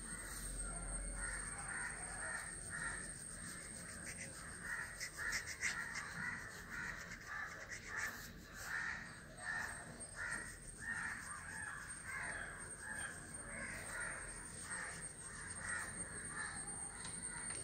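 Crows cawing over and over, faint, in irregular runs of harsh calls.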